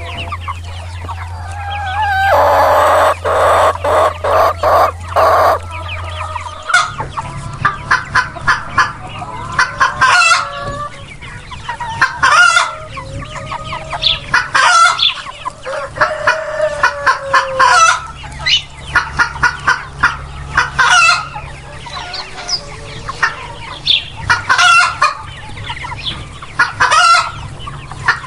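Chickens clucking, with roosters crowing: one long loud call a couple of seconds in, then from about seven seconds many short clucks broken by taller calls every two to three seconds.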